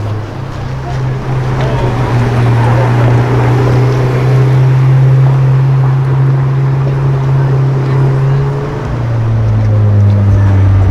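A sports car's engine running close by at steady low revs, a deep even drone whose pitch drops a little about nine seconds in as the revs ease.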